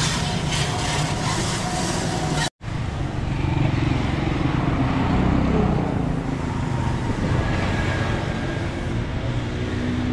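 Steady vehicle engine and road traffic noise, with a brief cut to silence about two and a half seconds in.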